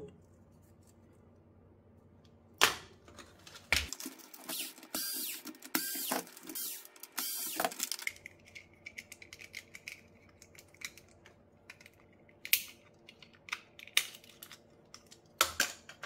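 Plastic parts of a partly dismantled Roomba 539 robot vacuum being handled and pried apart by hand: scattered sharp clicks and knocks, with a few seconds of denser scraping and rustling about four seconds in.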